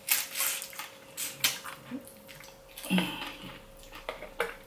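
Close-up eating sounds: a person chewing fish and smacking her lips and fingers, a run of short wet clicks with a brief low hum about three seconds in.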